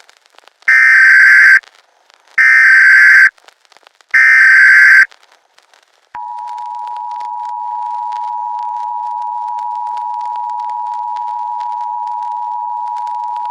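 Emergency Alert System signal: three loud bursts of the SAME header data screech, about a second each, then the steady two-tone EAS attention signal sounding from about six seconds in, over faint crackling static.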